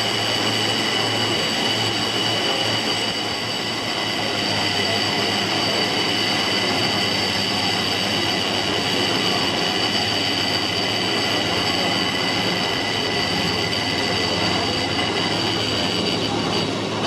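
Car of a short cable-hauled hillside tramway running on its rails: a steady rolling rumble with a constant high whine over it.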